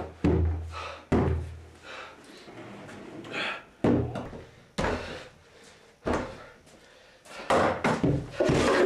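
Heavy thuds and bangs on a door, spaced irregularly about a second apart, then a quick run of knocks and clatter in the last second and a half.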